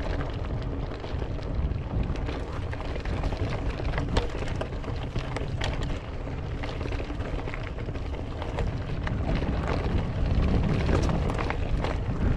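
Mountain bike rolling fast down a dirt singletrack: the tyres rumble over the dirt, with many sharp clicks and rattles from the bike over bumps, and wind buffets the microphone.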